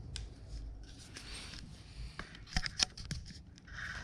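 A protective sticker being peeled and rubbed off a new GoPro Hero 7 Black action camera while it is handled out of its packaging. There is scratchy rustling, then a few sharp clicks about two and a half seconds in.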